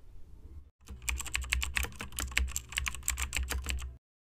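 Rapid, irregular clatter of keyboard keys being typed, starting about a second in over a low hum and cutting off abruptly near the end.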